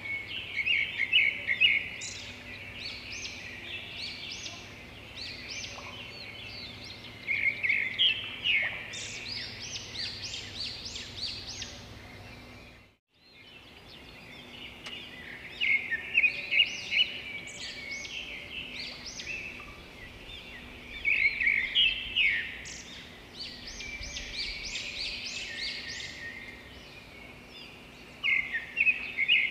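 Songbirds chirping and singing in quick, repeated trilling phrases, with a faint steady hum beneath. The sound cuts out for a moment about halfway through.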